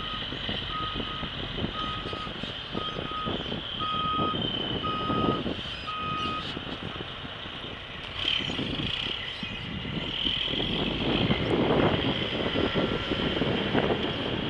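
A backup alarm beeping about once a second for the first six seconds or so, then stopping, over the continuous running of heavy diesel machinery: a John Deere excavator loading a dump truck. The machinery noise grows louder around eight seconds in and again from about ten seconds on.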